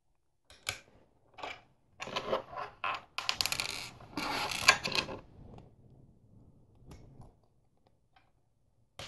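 Loose LEGO plastic pieces clicking and clattering as a hand sorts through them and picks them up. A few sharp clicks in the first second and a half, a denser rattle in the middle that lasts about three seconds, then a few lighter clicks.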